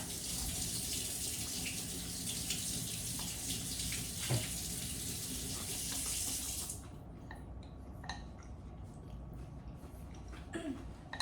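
Kitchen sink tap running in a steady stream, as if something is being rinsed, then turned off sharply about two-thirds of the way through. A few light clicks and knocks follow.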